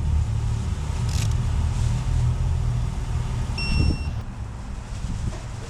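Screws on an engine cover being gone over again with a torque wrench, over a steady low rumbling of handling noise. There is a sharp click about a second in and a short, high electronic beep a little before four seconds in.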